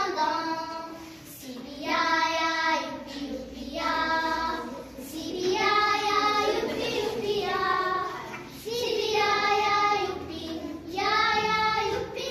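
Young girls singing a song together unaccompanied, in sung phrases a second or two long with short gaps between.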